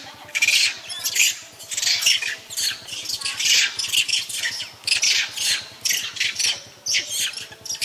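A troop of long-tailed macaques screaming: loud, high-pitched shrieks from several monkeys, overlapping and repeating a few times a second. These are alarm screams at a python close by.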